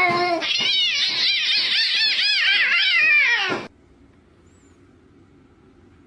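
Domestic cat yowling in a rapid string of rising-and-falling calls, about three a second, for some three and a half seconds, cutting off suddenly.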